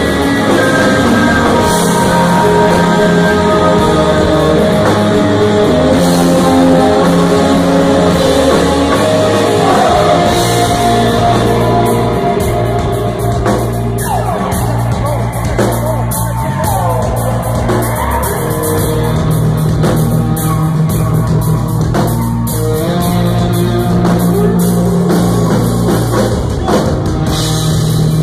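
Live rock band playing loud: layered electric guitars, bass and a drum kit, with a singer's voice over it in parts.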